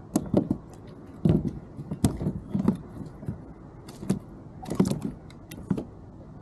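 Irregular knocks, clicks and rattles of fishing gear being handled against a plastic kayak, with a few louder thuds.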